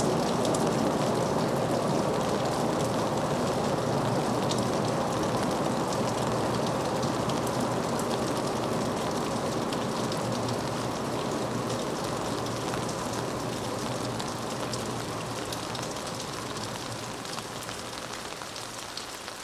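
Kurobe Gorge Railway trolley train hauling 13 passenger cars, its wheels rumbling and clicking on the rails as the cars roll past. The sound slowly fades as the train moves away.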